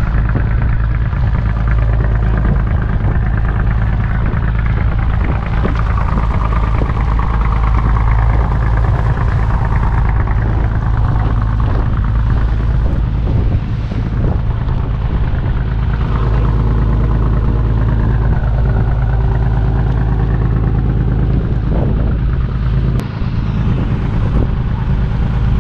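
Steady low drone of a fishing boat's engine running, with sea water washing against the hull and small knocks from the rods and gear on deck.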